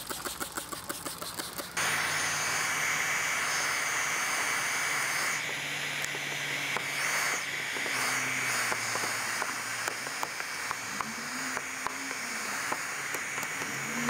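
A plastic trigger spray bottle squirting tack solution in a rapid series of short sprays. About two seconds in, a heat gun starts up and runs steadily with a hiss of blown hot air and a faint motor hum, heating the wet paint protection film so its lifted creases ('fingers') can be squeegeed down.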